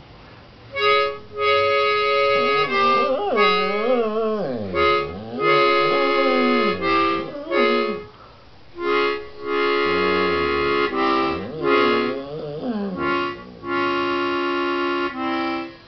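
Harmonica played in held chords, in short repeated blocks, while a dog howls along in wavering, sliding moans, most strongly about three to four seconds in and again a little after the middle.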